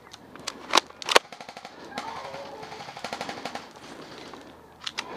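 Airsoft gunfire: two sharp cracks about a second in, followed by a fast rattle of shots lasting about two seconds, with a couple more single snaps near the end.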